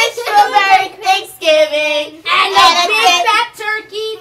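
Children singing without accompaniment, in short sung phrases with a held note partway through.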